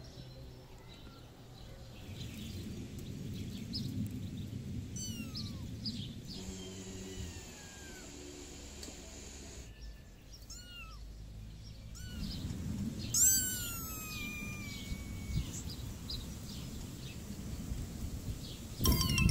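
Cat meowing: a string of short, high meows through the stretch, with one louder, longer meow about two-thirds through, over a low steady rumble.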